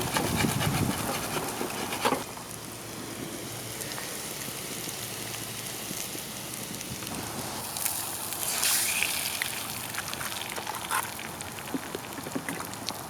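Food sizzling in a pan over a campfire, with the fire crackling and popping. The hiss is louder for the first two seconds, then drops to a quieter steady sizzle.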